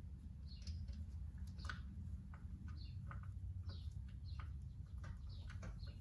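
Faint light clicks of small metal parts being handled at the clutch cover of a bicycle engine kit, with scattered short high chirps and a steady low hum behind them.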